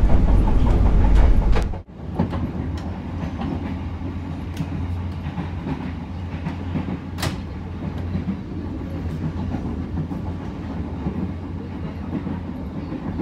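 KA Cikuray economy-class passenger train running, heard from inside the carriage: a steady low rumble with scattered sharp clicks from the wheels on the rails. A heavier, deeper rumble cuts off suddenly about two seconds in, and the quieter steady running continues.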